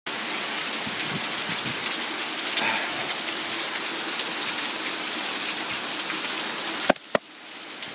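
Heavy rain pouring down in a steady, dense hiss. About seven seconds in come two sharp clicks close together, and after them the rain sounds much quieter and then slowly grows again.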